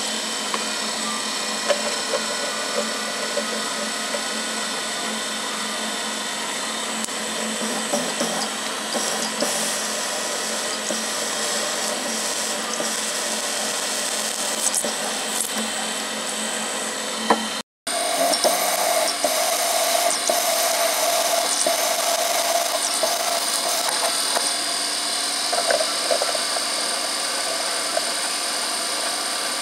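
Milling machine spindle running with a stub drill cutting into a steel clamp blank, a steady machining drone with a few fixed tones. It breaks off for a moment about two-thirds through, then resumes with a slightly higher, more pronounced tone as the drill cuts the next hole.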